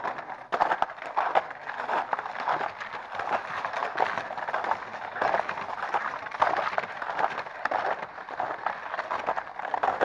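Footsteps crunching in snow and ice at a steady walking pace.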